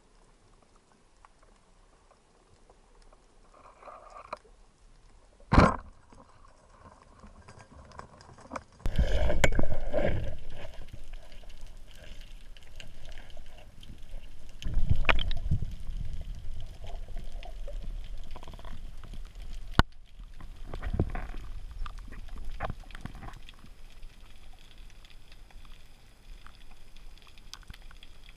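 Underwater sound picked up by a freediver's camera: quiet water at first, a single sharp click about five seconds in, then irregular louder rushes of water noise with occasional knocks as the spearfisher moves.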